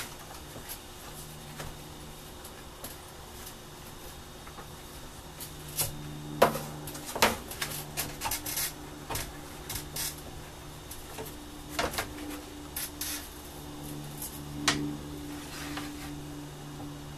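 Scattered clicks, taps and scraping from a stick being worked down inside a PVC pipe float to push expanding flotation foam into the voids, with a low hum that comes and goes.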